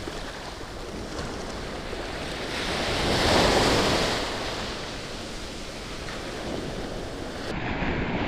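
Ocean surf breaking and washing up the shore in the shallows. It swells to its loudest a few seconds in as a wave crashes, then eases back.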